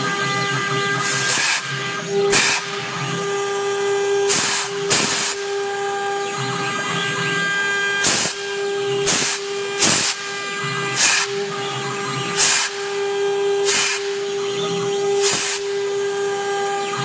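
CNC router's air-cooled spindle whining at a steady pitch, with about eleven short hissing bursts at uneven intervals as the bit cuts into the board.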